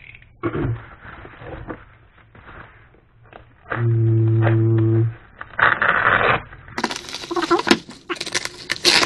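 Woven plastic mailing sack crinkling and rustling as it is cut open with a utility knife, with scraping and crackling clicks that grow denser near the end. Midway a steady low hum holds for about a second and is the loudest sound.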